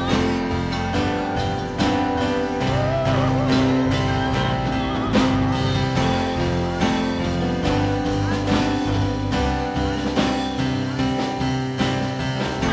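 Live gospel praise music from a church worship band, instruments playing steadily, with a singer's voice coming in at times.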